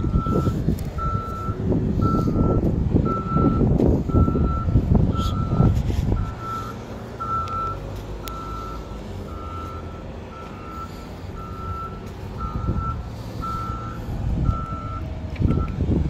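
A vehicle's backup alarm beeping steadily, about once a second, in a single steady tone. Heavy low rumbling noise covers the first six seconds and returns near the end.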